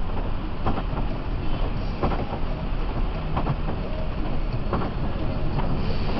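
Steady low drone and road noise inside the cabin of a Mercedes-Benz OH 1526 coach driving on a rain-soaked road, with light knocks about every second and a half.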